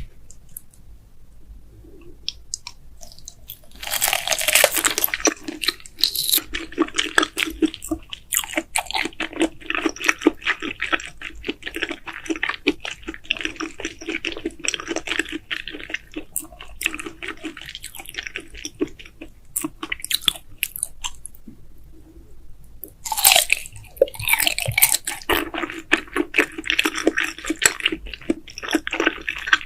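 Close-miked chewing of raw scallop sashimi, wet and rapid with many small clicks. It starts faint, grows loud about four seconds in, eases off briefly about three-quarters of the way through, then picks up loudly again.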